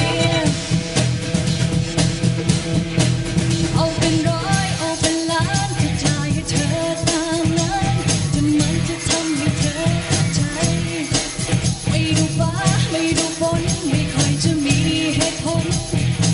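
Live pop band playing an upbeat song with drum kit, bass and guitar and a steady beat, a female singer's voice over it.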